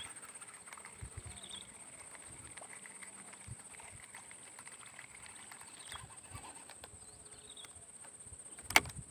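Swamp-forest ambience: a steady high-pitched insect drone with a few short chirping calls, light handling knocks, and one sharp click near the end.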